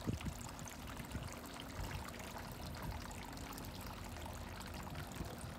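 Small tiered garden fountain, water trickling and splashing steadily.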